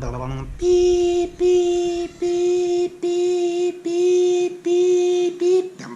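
A singing voice holding one note, broken into seven short held notes at the same pitch with brief gaps between them.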